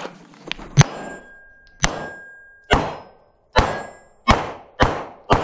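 A string of about seven 9mm pistol shots, coming faster toward the end, each echoing briefly in an indoor range. Some are followed by a short high ring from steel plates being hit.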